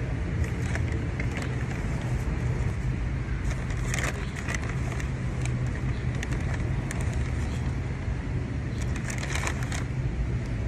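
Steady low hum like a motor vehicle running, with brief clusters of crackles and clicks about four seconds in and again near the end.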